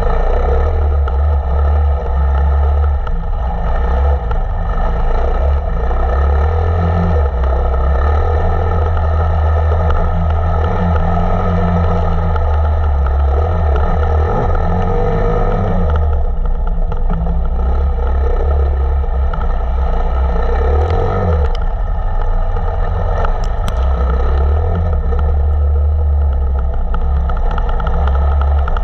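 Enduro motorcycle's engine running under throttle, its note holding fairly steady with brief changes around the middle and again a few seconds later.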